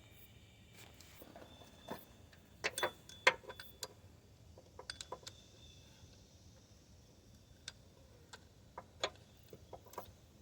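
Irregular light metallic clicks and clinks of hand tools and engine parts being handled, loudest about three seconds in, with smaller groups of clicks later on.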